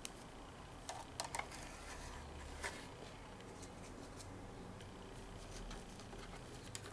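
Faint, light clicks and taps of small objects being handled, a few close together about a second in, another near three seconds and one near the end, over a faint low hum.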